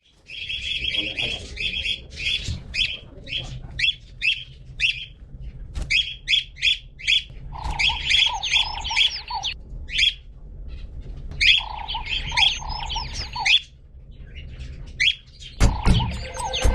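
Birds chirping in quick, repeated short calls, joined twice by a lower run of rapid repeated notes, over a steady low hum.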